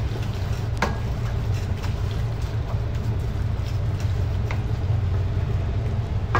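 Wooden spoon scraping and knocking against a metal pan as ground meat is stirred, with a few sharp knocks, over a steady low hum.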